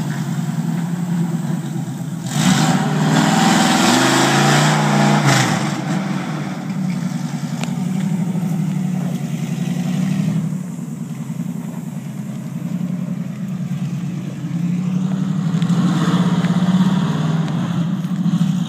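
Lifted Dodge Ram's V10 engine revving up as the truck pulls away, its pitch rising about two seconds in. It then runs steadily as the truck drives off, with another brief throttle-up near the end.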